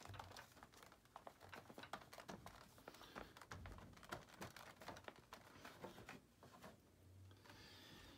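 Faint, scattered clicks and taps of a door sill plate being pressed down and worked into its seat by hand.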